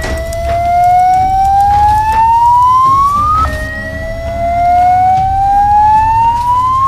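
Sci-fi power-up whine: an electronic tone rising steadily in pitch, dropping back and rising again about three and a half seconds in. A low hum runs underneath.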